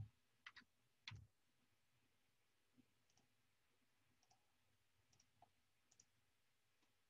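Faint computer mouse clicks over near silence. The loudest come at the start, as a quick pair about half a second in, and about a second in, followed by a few fainter scattered clicks.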